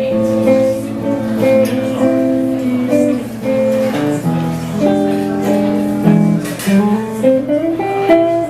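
Live jazz ballad with guitar accompaniment, plucked and strummed chords under a sustained melody line that glides upward near the end.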